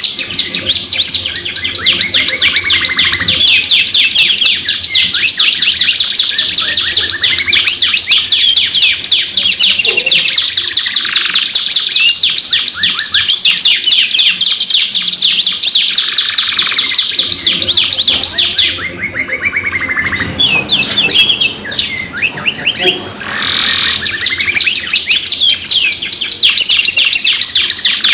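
Domestic canaries in full song, a long run of rapid, rolling trills of quickly repeated high notes. The song thins and softens briefly about two-thirds of the way through, then comes back at full strength.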